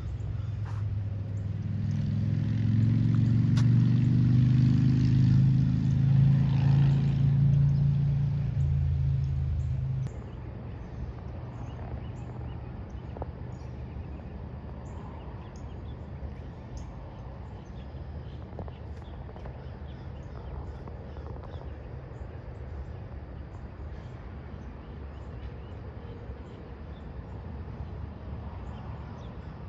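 A motor vehicle's engine runs loudly for the first ten seconds and then cuts off suddenly. Afterwards a low steady rumble remains, with faint bird chirps.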